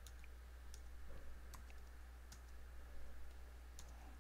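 Faint, separate keystrokes on a computer keyboard, about one a second, as a command is typed, over a low steady hum.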